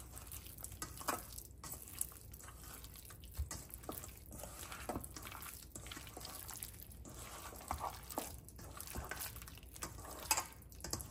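Soft, irregular wet squelches and light clicks of paneer and soya chaap pieces being mixed into a thick curd-and-spice marinade in a bowl.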